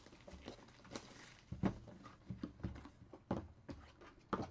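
Cardboard trading-card hobby boxes being handled and set down into stacks on a table: about eight irregular light knocks and taps, the firmest about one and a half seconds in, a little after three seconds, and near the end.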